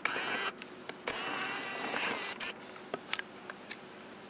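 Film advance mechanism of a 1972 Konica Autoreflex 35mm SLR being worked to wind the freshly loaded film on to the first frame. There are two ratcheting winds, a short one and then a longer one, followed by a few small separate clicks.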